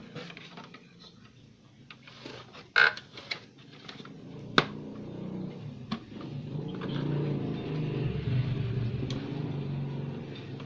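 Clicks and knocks of hands handling a CRT TV's chassis board and its parts, with two sharp clicks in the first half. From about halfway through, a steady low drone rises and carries on.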